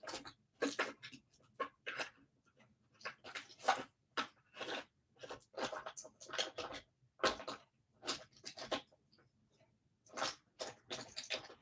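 Someone rummaging through small objects: a run of short, irregular rattles, clicks and rustles.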